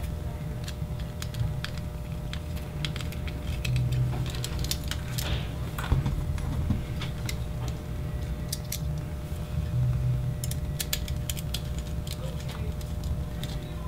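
Scattered light clicks and taps of small metal parts: machine screws, a small screwdriver and aluminium servo-block brackets handled and screwed together on a servo, over a low rumble of hands on the work.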